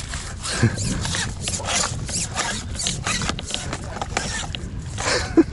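Rustling and rubbing handling noise, with scattered short clicks, as a landing net is worked in the water to scoop up a hooked black sea bream.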